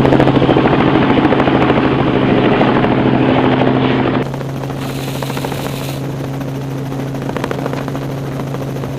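Helicopter running with a steady droning hum and rapid rotor pulsing. It is loud for about the first four seconds, then suddenly quieter but still steady.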